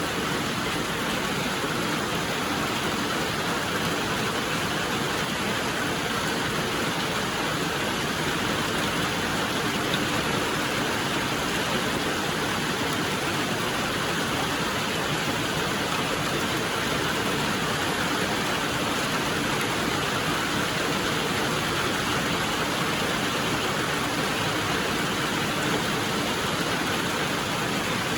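Steady rain falling: an even, unbroken hiss with no single drops, thunder or other events standing out.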